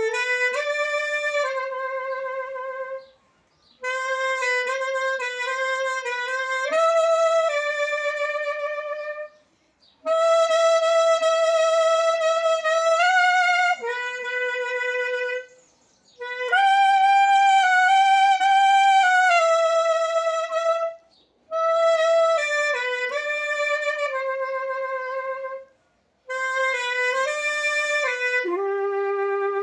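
Solo clarinet playing a slow hymn melody, one unaccompanied line of held and stepping notes in phrases of a few seconds each, with brief gaps between them.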